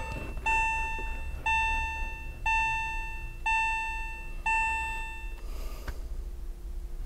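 Car warning chime sounding once a second, a clear electronic bell tone repeated about six times, then stopping about five seconds in, with the ignition switched on.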